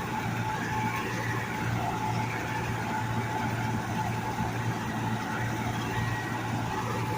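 Combine harvester running while it harvests soybeans: a loud, steady engine drone with a thin, steady whine over it.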